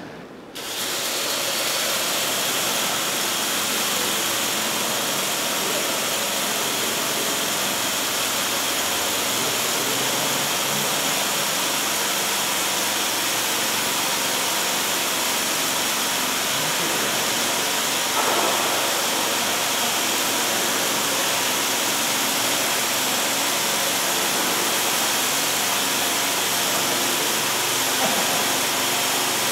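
Motor and propeller of a kinetic airship sculpture running steadily: an even, hissy sound with a few steady tones in it, starting about half a second in.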